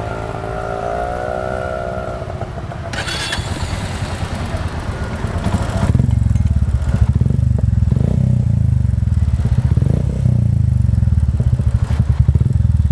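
Royal Enfield Classic 350's single-cylinder engine running through a newly fitted Globe Exploder aftermarket exhaust, with an even, deep pulsing beat that gets louder about halfway through.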